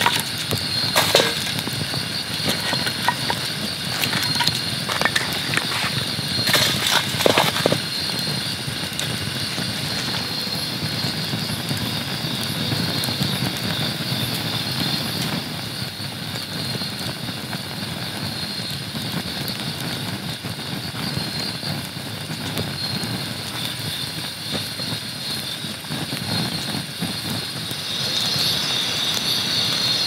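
Wood fire crackling in a metal fire can, with a few sharp pops about a second in and again a few seconds later. Night insects chirp steadily throughout and grow louder near the end, over a steady low rush.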